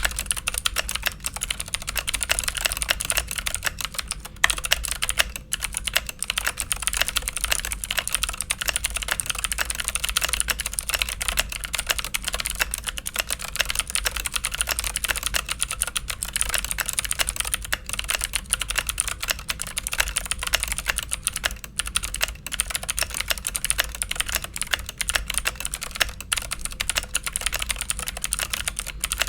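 Fast continuous typing on a Keychron K8 mechanical keyboard with stock Keychron Blue clicky switches: a dense clatter of crisp high clicks, with a few brief pauses.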